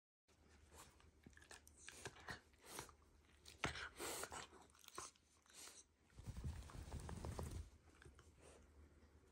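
Quiet close-up rustling and scattered soft clicks as a hand rubs and presses on a Shiba Inu's fur, with a low rumble of movement about six to seven and a half seconds in.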